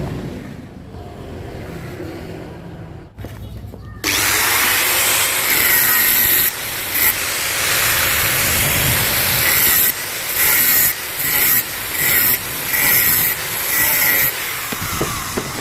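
Power tool starting suddenly about four seconds in after a low rumble, running steadily, then switched on and off in short bursts over the last five seconds.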